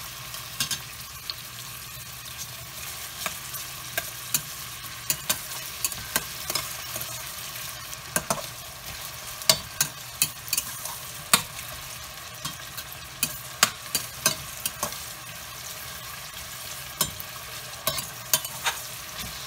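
Chopped onions sizzling in oil in a stainless steel pot while a metal spoon stirs them, scraping and clicking against the pot's bottom and sides many times at an uneven pace. The onions are being fried to a light brown.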